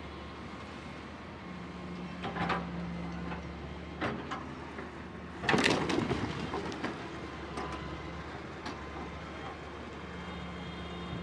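Hitachi wheeled excavator's engine running steadily while its bucket smashes wooden and sheet-metal shacks: crashes about two and a half and four seconds in, and the loudest, a longer crashing clatter of breaking timber and sheeting, at about five and a half seconds, followed by a few lighter knocks.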